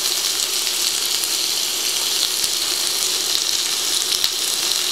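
Beef steak with carrots, green beans and garlic sizzling in olive oil in a frying pan, a steady hiss. A few light clicks come from the tongs as they push the vegetables around the pan.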